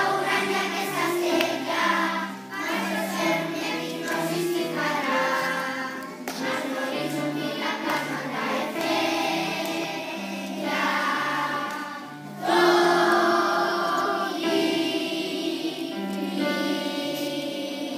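Young children's choir singing a song together to a piano accompaniment, the low accompanying notes changing every half-second or so. The singing grows louder about two-thirds of the way through.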